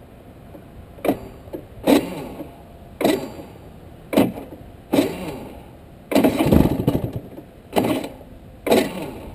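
Rotax two-stroke kart engine blipped in short bursts of revs about once a second, the pitch falling away after each, with one longer burst about six seconds in.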